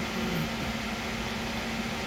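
Steady low hum over a constant hiss, like a running kitchen appliance or fan.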